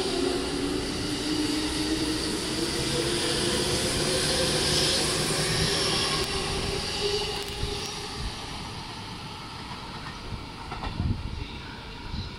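JR East E231 series electric train pulling out of the station: the whine of its inverter-driven traction motors over the running of steel wheels on rail, fading as the last car clears the platform about eight seconds in. A few low knocks near the end.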